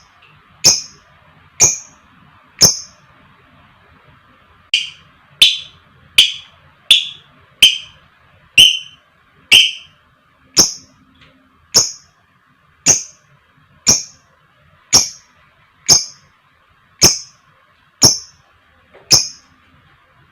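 Lovebird giving short, sharp single chirps over and over, about one a second. A pause of about two seconds comes near the start, and just after it the chirps come a little faster for a few seconds.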